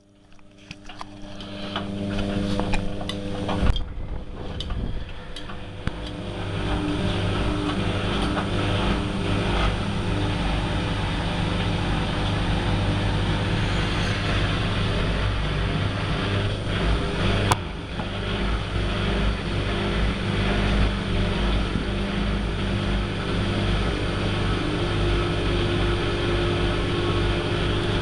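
Hotpoint Aquarius WMF70P washing machine running: the motor and drum build up over the first several seconds with a few clicks, then run steadily with a low hum.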